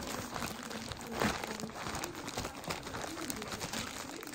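Plastic postal mailer bag crinkling and rustling as it is pulled open by hand, with the loudest crackle about a second in.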